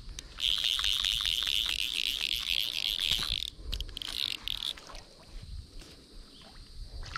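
An insect buzzing loudly and in pulses. It starts about half a second in and stops suddenly about three seconds later, then gives a short second burst.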